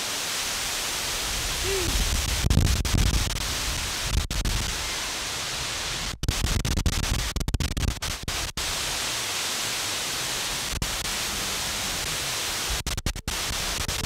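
Steady hiss of a large waterfall pouring into its pool, with a deeper rumble for a few seconds near the start. The sound breaks off briefly several times where shots are cut together.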